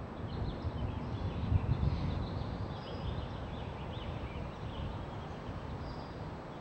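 Ambient field recording played back and re-recorded on an open microphone: a steady low rumbling noise, with faint short high chirps scattered over it.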